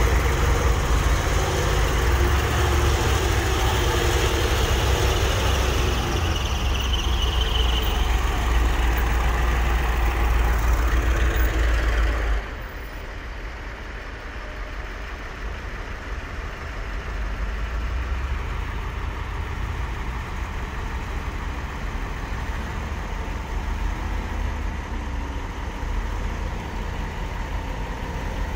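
Heavy dump truck diesel engines running, loud and close at first as a truck pulls through the mud. About twelve seconds in the sound cuts off suddenly to a quieter, steady engine running for the rest.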